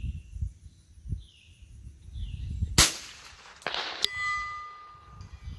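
A Ruger 10/22 .22 LR rifle shot about three seconds in. About a second later the bullet strikes a steel gong with a sharp clang, and the gong rings on with a few clear tones that fade, the sign of a hit on the target.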